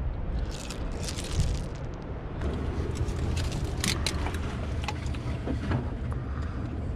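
Knife blade scraping and clicking against rock and hard shells as mussels are pried off a tide-pool rock, a run of sharp clicks and short scrapes. A steady low rumble sits underneath.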